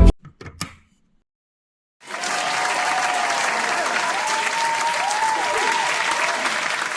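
Music ends abruptly, then after a second of silence an audience breaks into steady applause.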